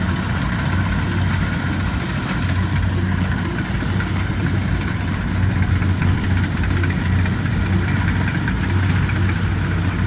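Kubota DC70 combine harvester's diesel engine running steadily under harvesting work, a continuous low hum with a light ticking rattle over it.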